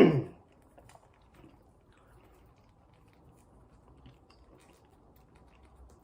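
A brief loud handling noise right at the start, then soft chewing with faint mouth clicks while a man eats fast food.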